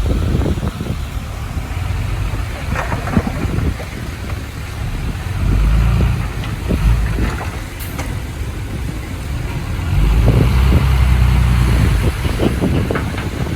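Komatsu D31P crawler bulldozer's diesel engine working, a low rumble that swells twice, about five and ten seconds in, with scattered clanks and rattles.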